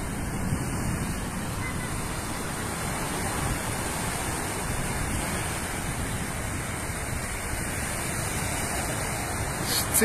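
Small waves breaking and washing up a sandy beach, mixed with wind rushing over the phone's microphone: a steady, even rush of noise.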